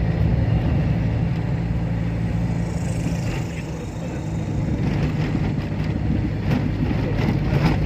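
Car driving, heard from inside the cabin: steady engine hum and road noise, dropping off briefly about halfway through and picking up again, with a few light knocks near the end.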